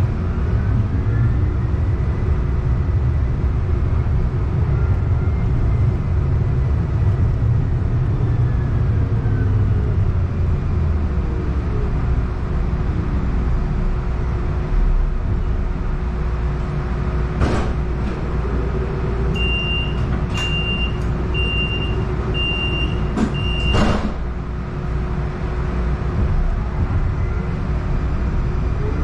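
Interior running noise of a Siemens S70 streetcar: low rumble and a steady electric hum, with motor whine gliding in pitch as it slows to a stop. After the stop come a few sharp clicks and clunks and a series of five short high beeps about a second apart.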